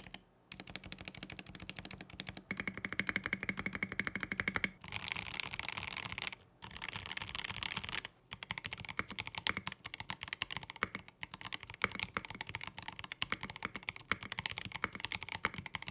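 Typing on a Machenike K500F-B81 mechanical keyboard with linear switches and PBT keycaps: quick runs of keystroke clacks, broken by brief pauses, with no spring noise.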